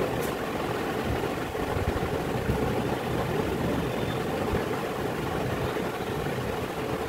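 Steady low mechanical hum and rumble of a running machine, with no single event standing out.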